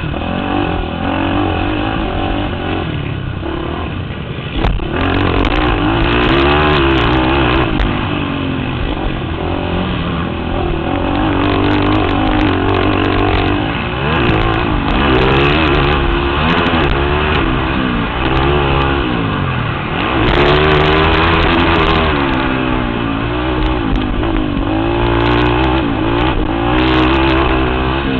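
Racing quad's engine revving hard and dropping back again and again as it is ridden around a motocross track, heard on board, with wind rushing over the microphone. A few short, sharp ticks come through now and then.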